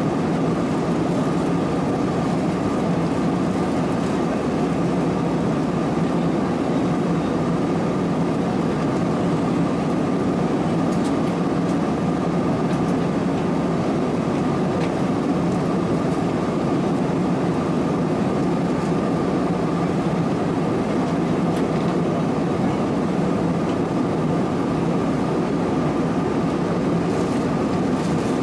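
Steady cabin noise of an Airbus A320-216 in cruise, heard from a window seat: the rush of air along the fuselage mixed with the sound of its CFM56 engines, with a thin steady tone above it.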